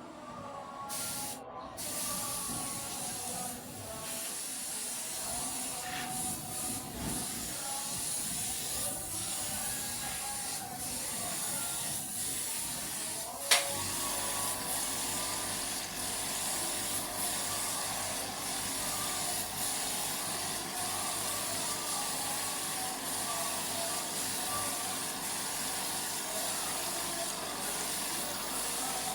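Clear coat being sprayed onto a signboard: a steady spray hiss. About halfway through there is a sharp click, after which a steady hum runs under the hiss.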